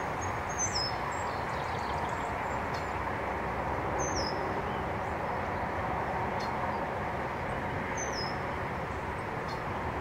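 Steady wind rushing through tall grass, with some buffeting rumble. A bird gives a short, high call that steps down in pitch three times, about four seconds apart.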